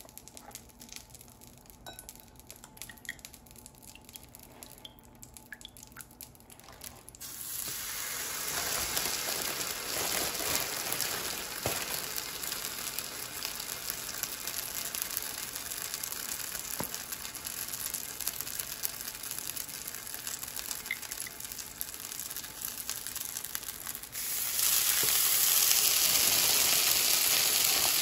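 Milk-and-cornstarch-soaked bread slices sizzling in melted butter on an electric griddle. Quiet at first, then a sudden dense sizzle about seven seconds in as the first slice goes down, turning louder near the end as a second slice is added.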